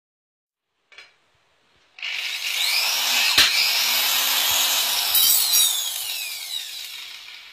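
Electric threaded-rod cutter switched on with a click, its motor running loud and rough while it shears a threaded rod with a sharp crack. It is then released and winds down, its whine falling in pitch as it fades.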